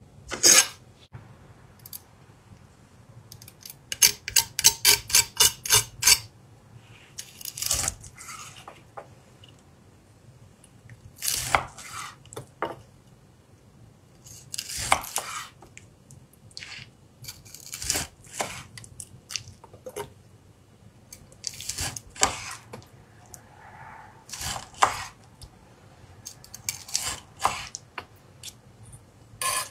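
A steel chef's knife slicing through the seared, peppered crust of a beef steak onto a wooden cutting board: sharp, crisp strokes, a quick run of about four a second a few seconds in, then single slices every few seconds.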